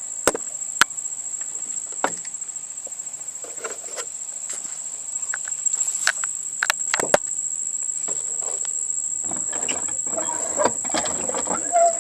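Steady high-pitched chorus of insects droning without a break. A few sharp clicks and knocks fall over it in the first several seconds, and busier clattering joins from about three-quarters of the way in.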